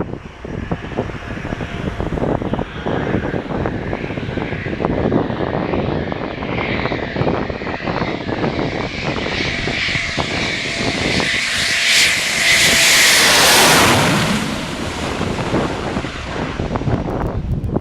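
Eurofighter Typhoon jet passing by, its twin-engine jet noise building to a loud peak about twelve seconds in and then fading.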